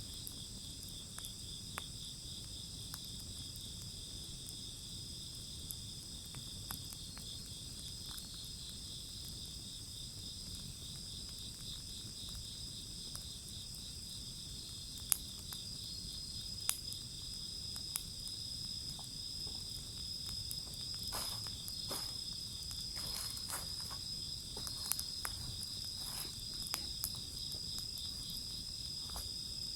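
Insects trilling in a steady high chorus, with scattered sharp pops and crackles from a wood fire burning, more frequent in the second half.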